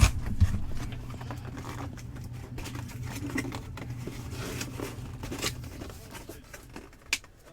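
Hands handling boxed memorabilia and its packaging: scattered small clicks, taps and rustles over a low steady hum that stops about two-thirds of the way in, with two sharp clicks near the end.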